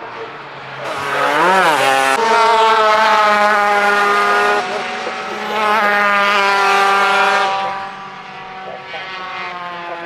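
Superkarts' two-stroke engines at high revs as they pass, with a quick rise and fall in pitch about a second and a half in. The sound is loudest from about one second in until it fades at seven and a half seconds, its pitch dropping as it fades.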